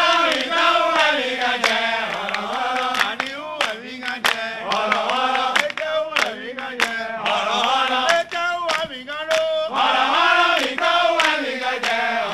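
Voices chanting a sung phrase, with many sharp clicks scattered through.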